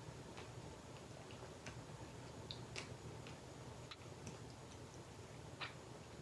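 Faint, irregular small clicks and wet smacks of someone eating soft fruit close to the microphone, spaced unevenly about every half second to a second.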